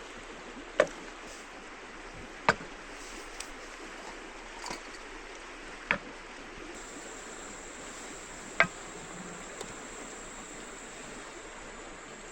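Steady rush of a flowing river, broken by four sharp clicks a couple of seconds apart. A faint, high steady tone joins about seven seconds in.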